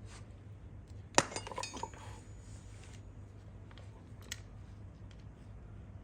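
Metal objects clinking: one sharp clink about a second in, then a short rattle of lighter clinks with some ringing, and a single light tick later, over a steady low hum.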